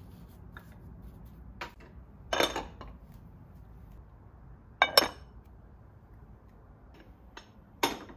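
Kitchen dishes and utensils clinking and knocking: a small click, then three sharp clatters, the first about two seconds in, one near the middle and one near the end.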